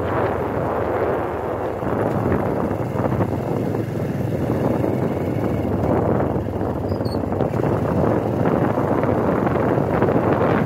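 Steady rushing wind buffeting the microphone of a camera carried along a road on a moving vehicle, with the vehicle's running noise underneath.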